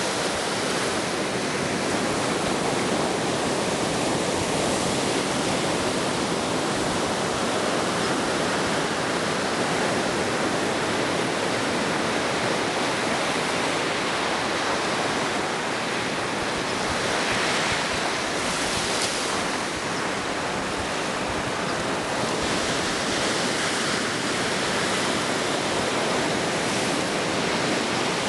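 Ocean surf washing steadily, with a brief swell about two-thirds of the way through.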